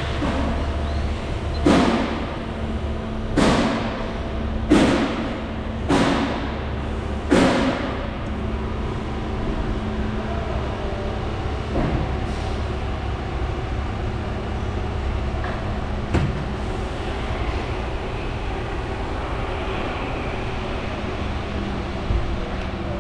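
Steady mechanical hum with five loud sudden bangs about a second and a half apart, followed by two fainter ones later on.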